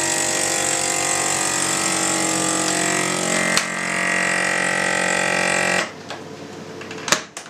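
Countertop vacuum sealer's pump motor running steadily as it draws the air out of a bag; its tone shifts about three to four seconds in, and it stops about six seconds in. Two sharp clicks follow near the end.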